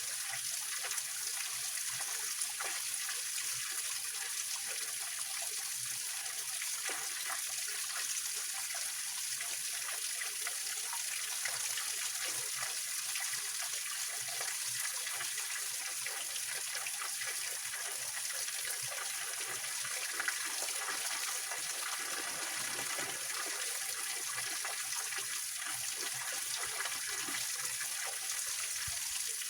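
Small waterfall on a rocky mountain stream: a steady splashing rush of water, with small splashes and trickles through it.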